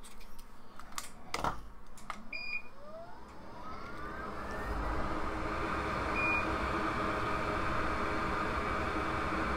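Hot air rework station starting up: a couple of short beeps, its fan spinning up in a rising whine and then blowing steadily. A few clicks and knocks of tools come before it.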